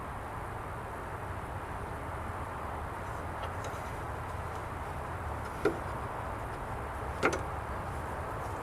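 Two sharp knocks, about a second and a half apart, over a steady background rumble.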